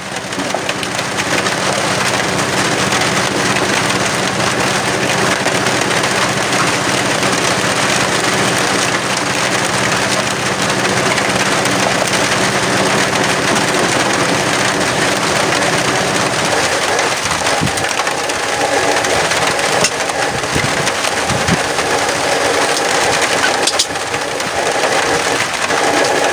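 A small engine running steadily under a loud, even hiss; the engine's hum fades out after about sixteen seconds while the hiss goes on.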